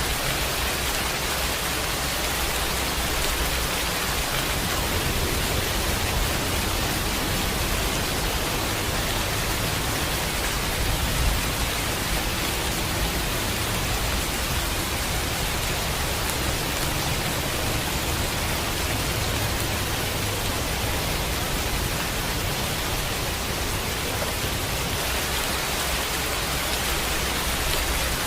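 Steady rain falling, an even, unbroken noise that holds the same level throughout.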